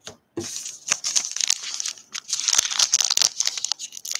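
A plastic trading-card pack wrapper crinkling and tearing as it is handled and opened: a run of crisp crackles with short pauses.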